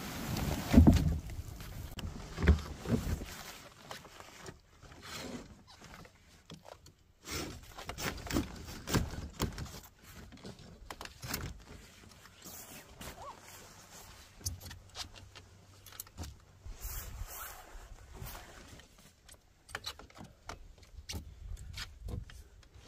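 Camping gear being handled and set down: irregular knocks, clicks and rustling, loudest and busiest in the first few seconds, then sparser.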